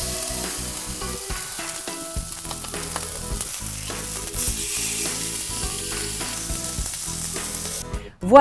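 Beef rib-eye steak sizzling in a hot ribbed grill pan, turned over with tongs, with a few light clicks along the way.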